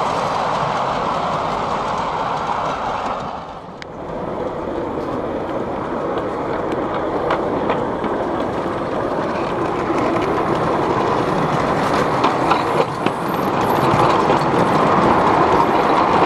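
Miniature ride-on railway train running on small-gauge track, a steady rolling noise of many wagon wheels on the rails. The noise dips briefly about four seconds in, then carries on as heard riding aboard the train, with a few sharp clicks later on.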